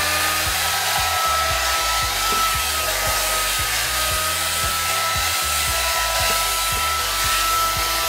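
Handheld hair dryer running steadily: a constant rush of air with an even, high motor whine.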